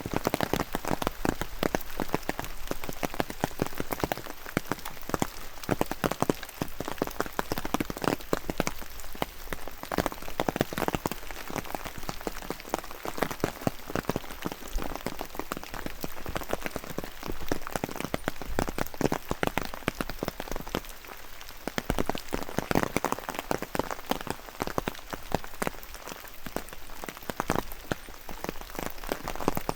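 Steady rain, with a dense run of close drops tapping all the way through and swelling and easing every few seconds.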